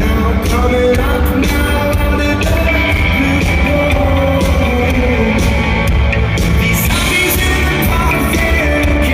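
A rock band playing live at a loud, steady level, with singing over the instruments.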